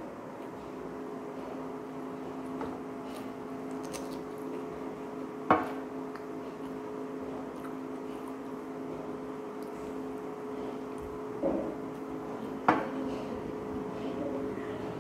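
A steady mechanical hum, like a small motor or appliance running, with two sharp clicks or knocks about five and twelve seconds in.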